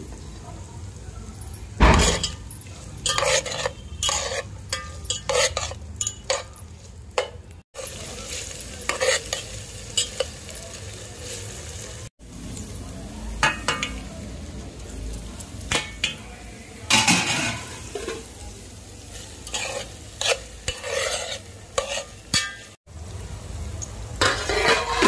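Chopped okra frying in oil in a metal pot, sizzling, while a metal spoon stirs and scrapes it against the pot in irregular strokes.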